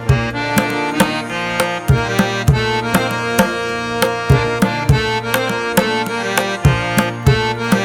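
Instrumental background music: sustained melodic notes over a regular hand-drum beat with sharp strikes, in an Indian classical style.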